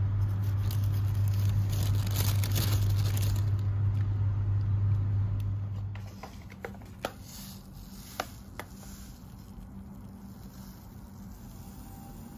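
Plastic grocery bag rustling and crinkling over a steady low hum. About six seconds in, the hum and rustling stop, followed by a few light, sharp clicks as seeds are poured into a glass jar.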